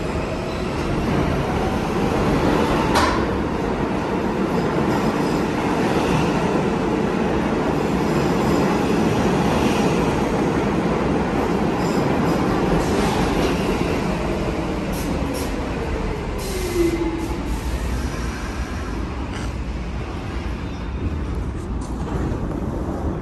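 New York City subway train pulling into the station along the platform, a steady rumble of wheels and motors with a sharp clank about three seconds in. A falling whine comes in the second half as it brakes, and the noise eases near the end as the train comes to a stop.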